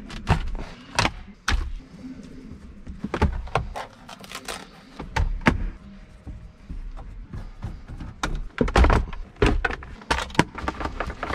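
Hard plastic car interior trim and a wiring harness being handled and pushed into place in the centre console. Irregular clicks, knocks and rattles, with a sharp knock about five seconds in and a cluster of knocks around nine seconds.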